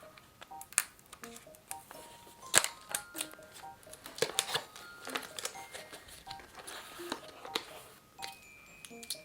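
Soft background music of short, light melodic notes, with many sharp clicks and taps over it; the loudest clicks come about one second in and a little over two and a half seconds in.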